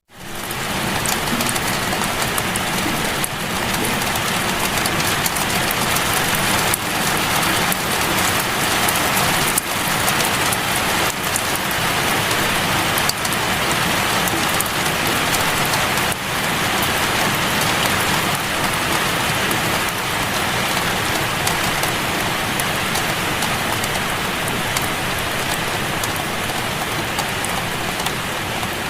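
Steady rain falling on a surface, a dense even hiss flecked with small drop ticks; it fades in quickly out of silence at the start.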